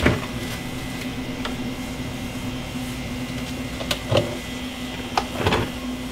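A mini fridge door pulled open with a sharp click, then a few knocks and rattles of bottles and jars being taken from its shelves, over a steady low mechanical hum.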